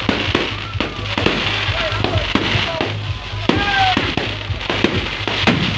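Fireworks display going off: a rapid, irregular string of sharp bangs over continuous crackling. Music with a pulsing bass beat plays underneath.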